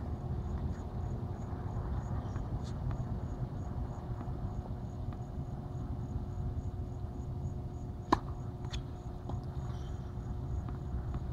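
Crickets chirp steadily, about three pulses a second, over a low background rumble. A tennis racket strikes a ball with a sharp crack right at the start and again, louder, about eight seconds in, followed by a lighter knock.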